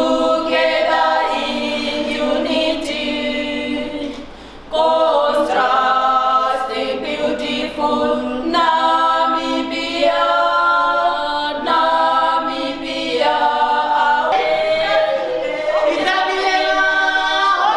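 A group of voices singing together a cappella, unaccompanied, with a short break about four seconds in before the song picks up again.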